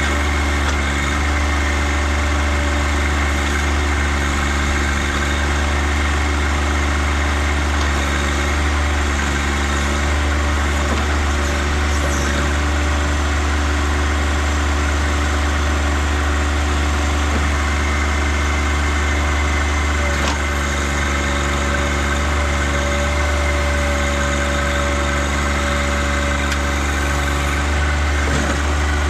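John Deere tractor's engine running steadily while it powers the backhoe during trenching, with a few faint knocks.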